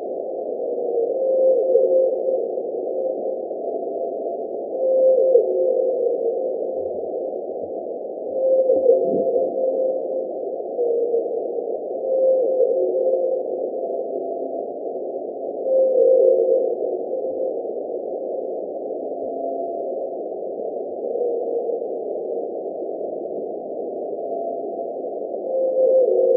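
Antarctic blue whale calls picked up by the vertical component of an ocean-bottom seismometer, raised twenty times in frequency to be audible. A humming tone comes back about every four seconds, some calls with a brief downward glide, over a constant rushing hiss of sea-floor noise.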